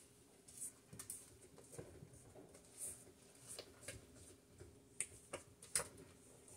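Silicone spatula scraping cake batter off a stand mixer's stainless steel bowl and paddle beater: faint, irregular scrapes and light clicks, with two sharper taps about five seconds in.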